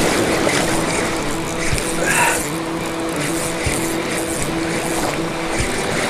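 Spinning reel being cranked against a hooked fish, a low hum that comes and goes in short stretches, over the wash of surf and wind on the microphone, with a few soft knocks.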